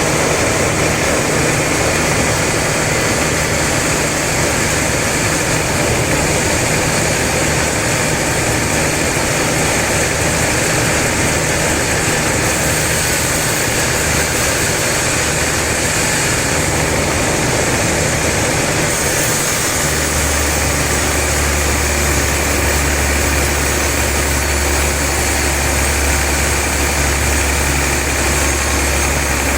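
Log sawmill machinery running steadily, with a constant mechanical drone and hiss. About two-thirds of the way through, a deeper, louder hum sets in and holds.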